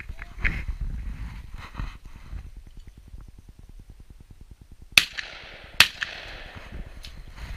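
Two shotgun shots about a second apart, the second just after the first, each with an echo trailing off afterwards.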